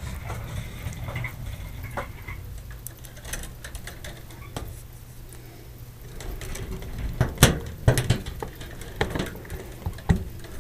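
Scattered small metallic clicks and taps as a screw and hand screwdriver are worked against a fluorescent fixture's ballast and sheet-metal housing, a few sharper clicks past the middle, over a low steady hum.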